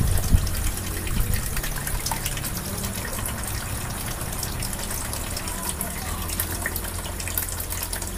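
A thin stream of water pouring onto a small model water wheel's paddles and splashing into a plastic tray, over a steady low hum from the small 6 V DC water pump that recirculates the water.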